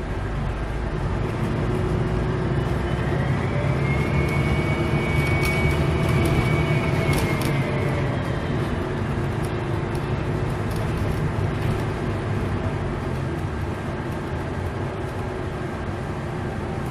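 Diesel engine of a city bus pulling away and accelerating, its turbocharger giving a loud high whistle. The whistle rises in pitch over the first few seconds, holds, then falls away as the bus eases off, over a steady engine drone.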